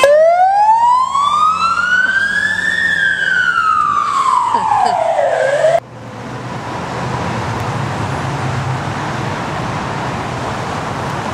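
An emergency-vehicle siren sounds one slow wail, rising and then falling in pitch over about five seconds, and cuts off abruptly. Then the steady rumble of dense road traffic fades in and holds.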